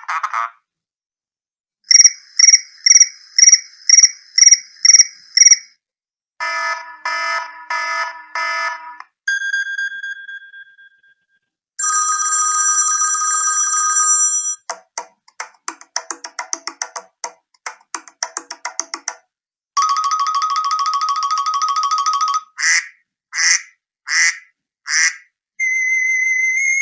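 iPhone SE preset ringtones played one after another, each cut short. First a run of eight quick electronic beeps, then a chiming pattern, a single tone that fades out, a steady tone, a rapid chirping trill, a warbling tone and four short pulses.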